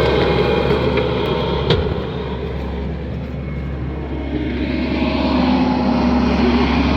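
Engine of a heavy farm machine running steadily, with one sharp knock about two seconds in. It eases off briefly, then works harder again.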